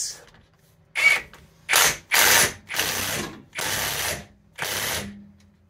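Cordless impact wrench hammering in about six short bursts, each under a second, on a bolt through a nut welded to a rusted-in, seized rear wheel-bearing hub, trying to force the hub out.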